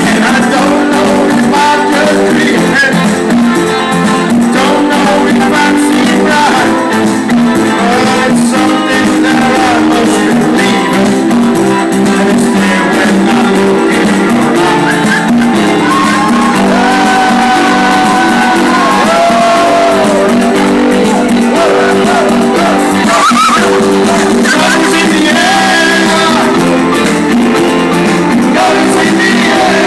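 Live rock band with electric guitars playing loud while a man sings into a handheld microphone.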